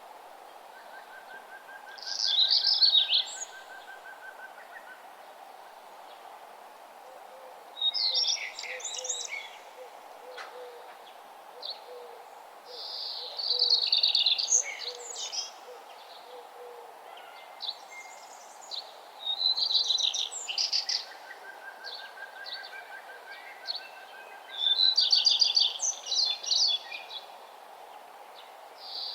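Wild birds singing. One bird repeats a quick, bright, high song phrase about every five or six seconds. Fainter birds add a thin held trill and a series of low notes, over a steady outdoor background hiss.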